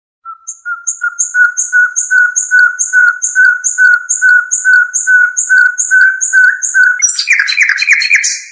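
Recorded songbird song of the 'haddad' (blacksmith) phrase, used to tutor young birds: a steady series of clear, ringing notes repeated about three times a second. About seven seconds in it breaks into a quicker, rattling trill, then stops.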